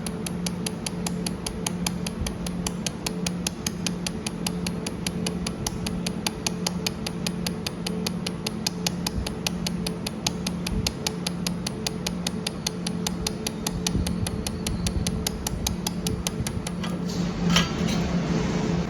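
Pulsed YAG laser welder spot-welding thin stainless steel: a steady train of sharp ticks, about five a second, one per laser pulse, over the constant hum of the machine. The ticks stop shortly before the end, and one louder knock follows.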